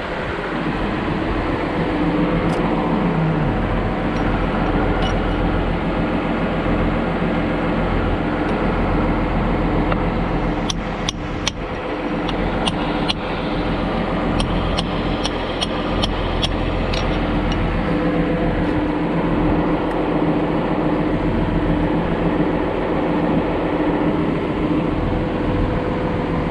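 John Deere 710D backhoe's diesel engine running steadily. About halfway through comes a quick run of sharp clicks or taps.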